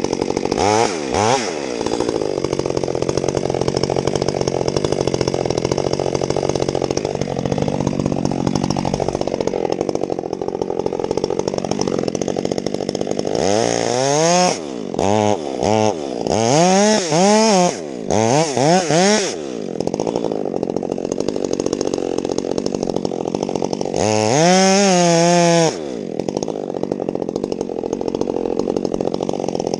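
Stihl chainsaw idling, with a run of quick throttle blips about halfway through and a longer stretch held at high revs near the end, revving up again as it ends.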